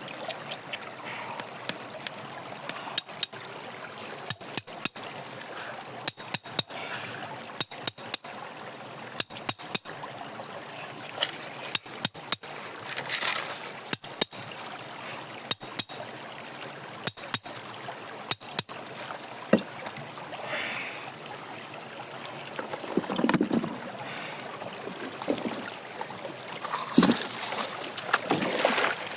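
Water sloshing and trickling, with short clicks and brief gaps about every one and a half seconds for most of the stretch, then a few louder splashes near the end.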